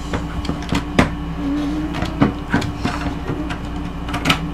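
Scattered clicks and knocks of a plastic Play-Doh toy grill being pressed shut and handled, the sharpest about a second in and near the end, over a steady low hum.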